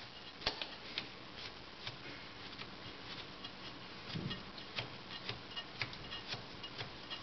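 Faint, light ticking, about two sharp clicks a second, with a soft low bump a little past the middle.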